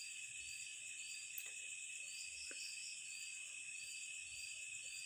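Crickets chirping faintly in the background: a steady high trill with a pulsing chirp about twice a second, and a couple of small clicks.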